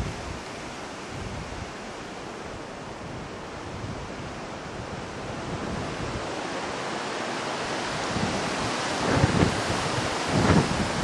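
Wind buffeting the camera microphone as a steady rushing noise, with stronger gusts near the end.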